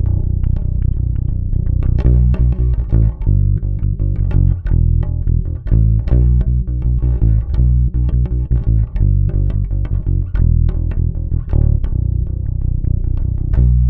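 Warwick Vampyre SN-5 five-string electric bass played direct into an audio interface, with no amp, repeating one plucked riff. It is on the neck pickup with the active EQ's bass and treble turned all the way up.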